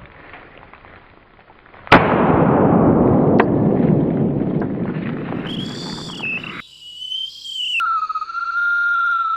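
A single loud blast about two seconds in, followed by a long rumbling decay that cuts off abruptly. Then a steady high electronic tone takes over and steps down to a lower pitch.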